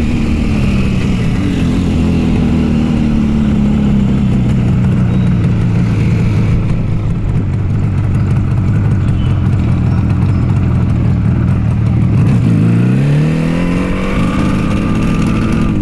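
Yamaha RD350's two-stroke parallel-twin engine running under way. Its pitch eases down at first and holds steady, then climbs sharply as it revs up late on, and drops back near the end.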